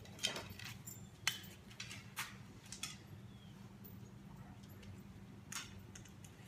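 Faint, irregular clicks and taps, a second or so apart, from dogs' claws on a concrete garage floor, over a steady low hum.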